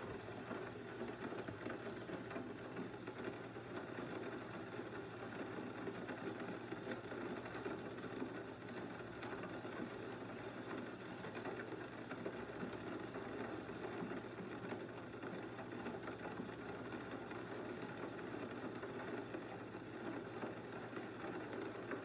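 Faint, steady low hum with a light hiss of room tone, unchanging throughout.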